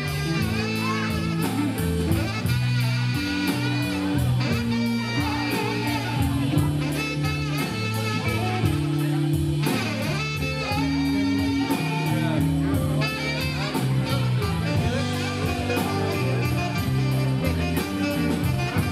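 A live band playing: electric guitar through a Marshall amplifier, drums keeping a steady beat, and a saxophone playing melody lines.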